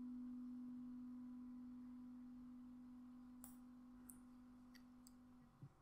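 Near silence: a faint steady low tone slowly fading away and stopping about five seconds in, with a few faint clicks.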